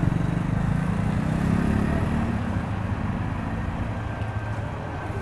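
Scania coach's diesel engine pulling away, its pitch rising over the first two seconds as it accelerates, then fading as the bus moves off.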